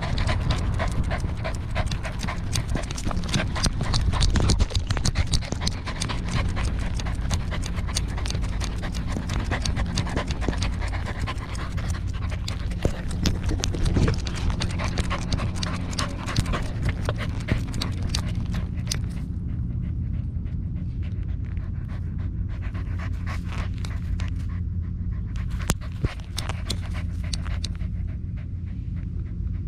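Corgi panting right at the collar-mounted camera's microphone, with dense clicking and rattling over it for about the first two-thirds, which then thins out and quiets.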